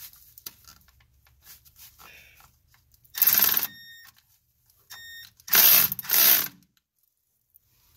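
Cordless electric ratchet spinning a bolt in three short bursts, one about three seconds in and two close together near six seconds, backing out a mounting bolt of the NOx sensor module.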